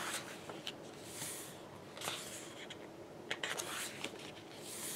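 Pages of a large photo book being handled and turned by hand: several soft paper swishes with a few light ticks in between.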